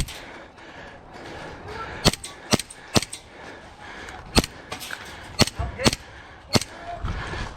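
Airsoft guns firing single shots, about eight sharp cracks at uneven intervals, some in quick pairs.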